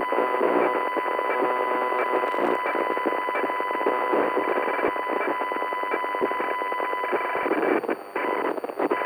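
Glitch sound effect of a working computer CPU: dense, rapidly flickering electronic crackle with a steady high whine on top. It stutters and drops out briefly a few times near the end.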